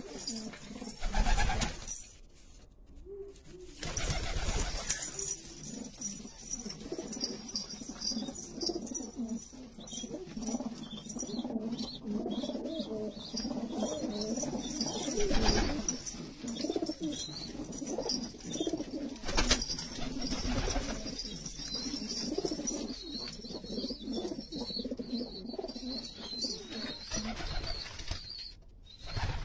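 Domestic pigeons cooing steadily as a flock, with several short bursts of wing flapping as birds fly up and land.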